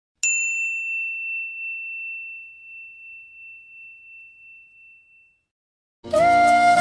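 A single high bell-like chime, struck once and ringing out as a pure tone that fades away over about five seconds. About six seconds in, a bansuri flute tune with sustained notes begins.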